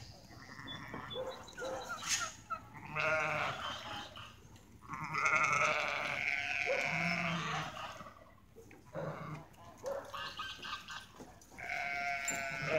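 Farm animals bleating: several wavering calls, the longest and loudest from about five to seven seconds in, another near the end.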